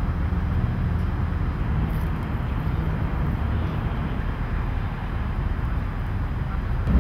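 Steady outdoor noise: a continuous low rumble with an even hiss over it, with no distinct events.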